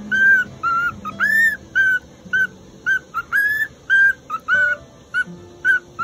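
Cockatiel whistling its song: a run of short, clear whistled notes at about two a second, most on one pitch and a few held longer with a rise and fall. The bird is practising its song, which sounds halting and off-key.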